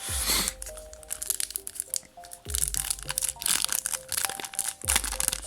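Crinkling and tearing of a foil booster pack wrapper, a dense crackle, loudest at the start and again through the middle, over steady background music.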